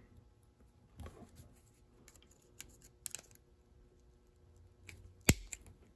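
A few small, scattered clicks and taps of metal derailleur parts being handled as a retaining clip is fitted onto the knuckle bolt of a Shimano Ultegra rear derailleur, with one sharp click about five seconds in.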